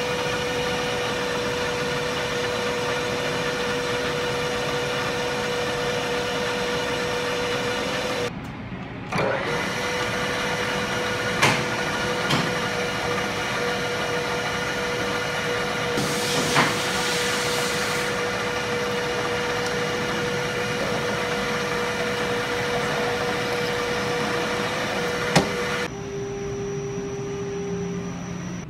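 Milling machine spindle running with a steady whine while cutting an aluminium block, with a few sharp clicks and a hissing stretch around the middle. The whine breaks off briefly about eight seconds in, and stops near the end, giving way to a lower, quieter hum.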